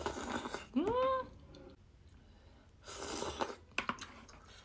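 Eating sounds over a bowl of hot spicy ramen: breathy blowing on a spoonful of hot soup, a brief voiced "mm" that rises and falls in pitch about a second in, another breathy burst about three seconds in, then a few light clicks of wooden chopsticks against the bowl.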